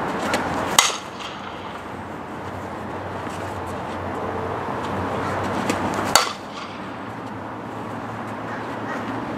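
Softball bat striking pitched softballs twice, a sharp crack less than a second in and another about six seconds in, over a steady outdoor background noise.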